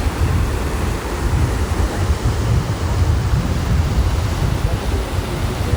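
Loud, steady rush of a fast-flowing whitewater river, with wind buffeting the microphone in a fluttering low rumble.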